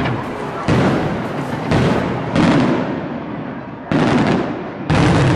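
Aerial fireworks shells bursting overhead: five loud booms at irregular intervals of about half a second to a second and a half, each dying away before the next.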